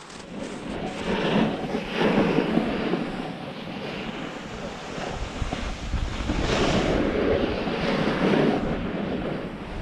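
Wind buffeting the microphone together with the hiss and scrape of a snowboard sliding over packed snow while riding downhill, swelling and easing in waves.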